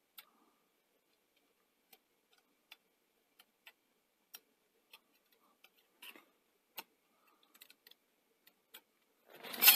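Faint, irregular small clicks and ticks of a thin feeler gauge blade touching the video head drum as it is eased toward the gap between the rotary transformer halves. A louder noise rises just at the end.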